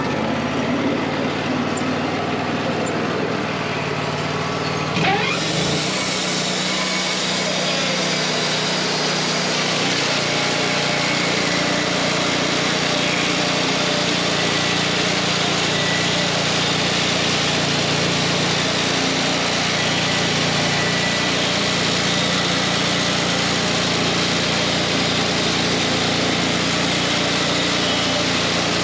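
Wood-Mizer LT40 Wide portable bandsaw mill running steadily. About five seconds in there is a short change, after which the sound is fuller and hissier.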